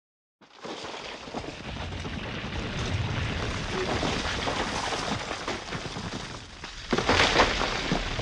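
Rockfall sound effect: a dense, crackling rumble of tumbling rock that begins suddenly, with a louder crash about seven seconds in.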